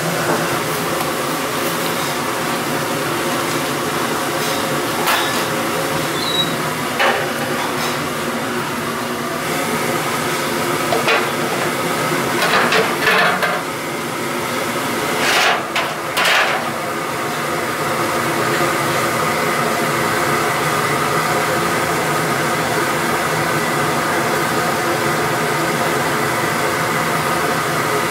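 Steady hiss and hum of a commercial kitchen's gas burners and fans over boiling stockpots. A few sharp metal clanks of stainless pot lids and a ladle come in the middle.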